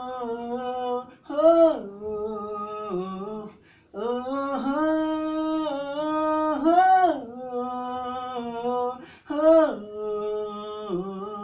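A man singing unaccompanied, a wordless melody in long phrases of held notes that swoop up and fall back, with short breaths between phrases.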